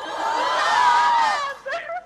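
Studio audience screaming and cheering in many high voices; it swells and dies away after about a second and a half.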